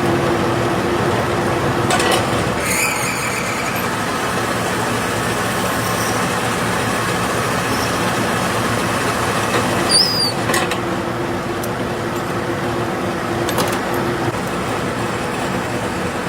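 Factory machinery running steadily with a constant hum. There are a few clicks, and about ten seconds in a brief high metallic squeak.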